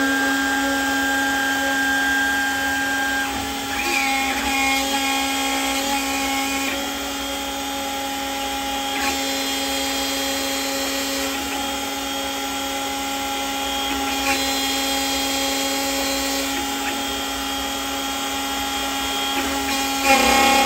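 CNC mill spindle running and its end mill cutting aluminium plate: a steady whine with several held tones over the cutting noise, getting louder near the end.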